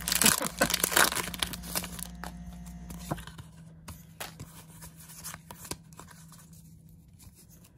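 Pokémon booster pack's wrapper being torn open and crinkled, loud and crackly for about the first two seconds, then dying down to faint scattered ticks and rustles of handling.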